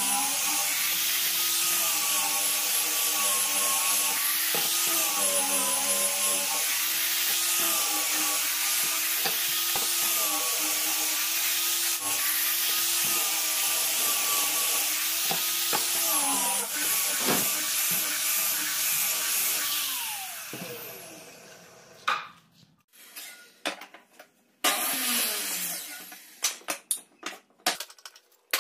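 Small angle grinder with a sanding disc running against a pine board, a steady whine over gritty rubbing, its pitch dipping whenever the disc is pressed into the wood. About twenty seconds in it is switched off and winds down. This is followed by scattered knocks and clicks of boards and a clamp being handled.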